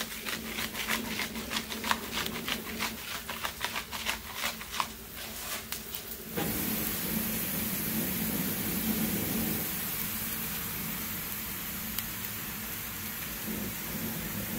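A hand-held salt grinder clicking rapidly as salt is ground over the griddle. About six seconds in this gives way to the steady sizzle of plantain slices frying in oil on a hot flat-top griddle.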